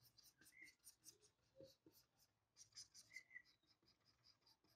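Faint, quick scratching strokes of a stylus on a drawing tablet as shading lines are hatched in.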